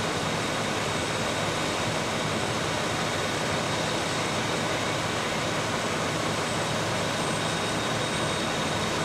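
Fire apparatus diesel engines running their pumps in a steady roar with a low hum, feeding aerial master streams.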